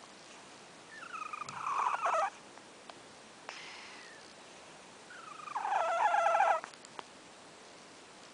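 A sleeping cat snoring: two fluttering snores, each a little over a second long, about four seconds apart.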